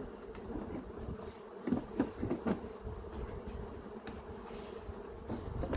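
Honeybees from a newly installed package buzzing steadily in a mass around the hive, with a few light knocks about two seconds in.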